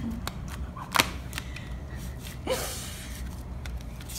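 Homemade slime being squeezed and worked by hand, giving irregular small clicks and pops, the sharpest about a second in.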